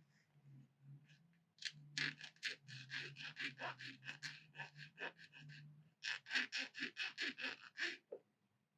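Quick back-and-forth rasping strokes of a small resin model part being cleaned up by hand on an abrasive, about four or five strokes a second, in two runs with a short break between them about six seconds in. The strokes are faint.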